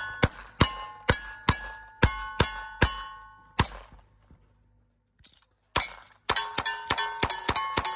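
Cowboy action shooting: single-action revolver shots, each answered by the ring of a steel target, about eight in steady succession. After a pause of about two seconds for the change of guns, lever-action rifle shots and steel rings come in a faster string.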